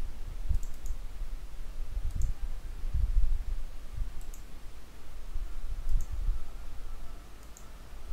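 Computer mouse button clicks, single and double, spaced a second or two apart, over a low background rumble.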